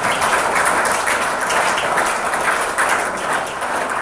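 Audience applauding: dense, even clapping that thins out near the end.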